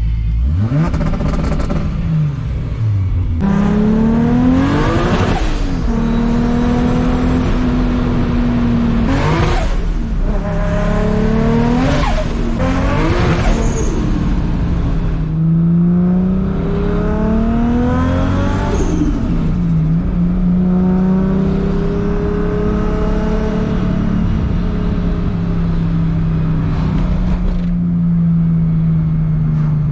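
Big-turbo Toyota Supra 2JZ-GTE inline-six revving, its note climbing and dropping back several times. It then holds a nearly steady pitch for the last stretch.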